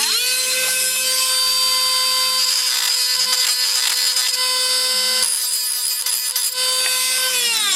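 Small electric drill or rotary tool spinning up, running at a steady high-pitched whine while drilling out the rivet posts of a die-cast toy car, then winding down near the end.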